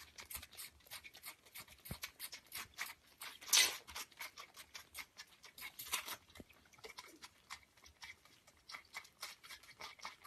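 Kittens suckling from milk bottles: quick, irregular clicks several times a second, with one louder short rush of noise about three and a half seconds in.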